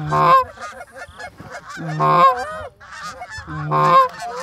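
Canada geese honking: a flock calling over and over, many honks overlapping, with three much louder honks about two seconds apart.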